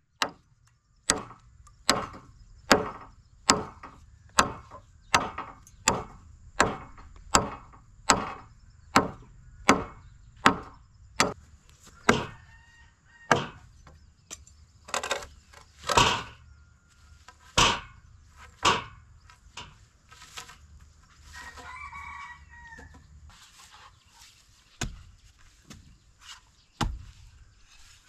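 A steady series of sharp blows, about one every 0.8 s for some eleven seconds, then slower and uneven. A rooster crows briefly about three-quarters of the way through.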